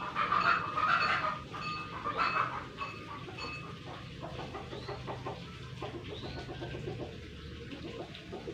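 Animal calls, a few short loud ones in the first two and a half seconds and fainter ones after, over a low steady hum.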